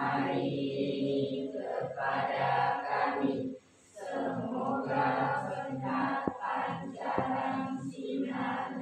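A group of children chanting a prayer in unison, many voices together in long phrases broken by short pauses.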